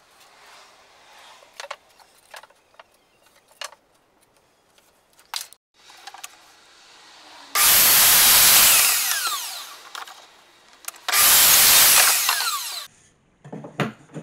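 Electric sliding mitre saw cutting an angle on a piece of pine pallet wood, run twice: each time it starts up loud, cuts through and winds down with a falling whine. Light knocks and rustles of the wood being handled come first.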